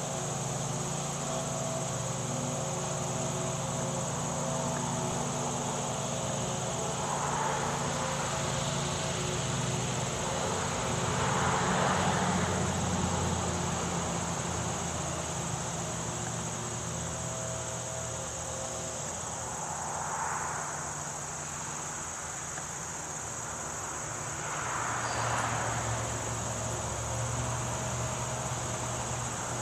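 Steady high-pitched chorus of insects such as crickets, over a low distant hum, with a few slow swells of noise rising and fading four times.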